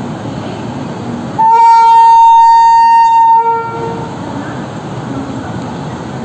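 WAP-7 electric locomotive's horn sounding one long blast of about two seconds, a loud steady tone with a low undertone at its start and end, over the steady rumble of the station.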